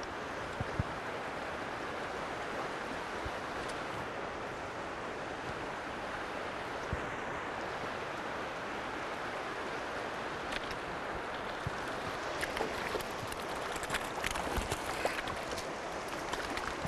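Steady rush of a flowing river around a wading angler, with a few short splashes and ticks in the last few seconds as a hooked trout thrashes at the surface.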